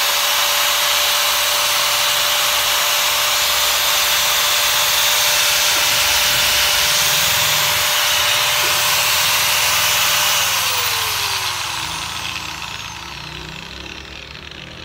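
Unused Makita 100 mm angle grinder (100 V, 670 W) running free with no load, a steady whine. About ten seconds in it is switched off and winds down, its pitch falling as it fades.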